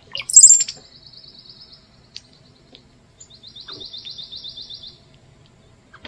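Songbird singing: a loud, sharp note near the start, then a fast, even trill, and a second trill about three seconds in.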